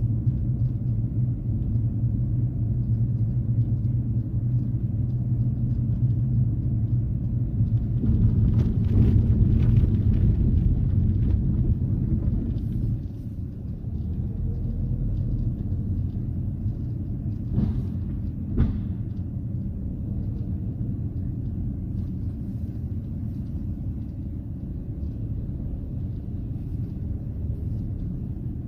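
Low road rumble inside the cabin of a second-generation Kia K5 (JF) on the move, heard from the rear parcel shelf. A few short knocks stand out, a cluster of them about a third of the way in and two sharp ones a second apart past the middle: the rattle from around the C-pillar, with its interior trim removed.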